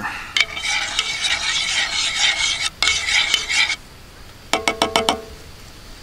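A spoon stirring hazelnut creamer into a cup of coffee, a steady scraping swirl for nearly four seconds. It ends in a quick cluster of clinks that ring briefly, a little after halfway.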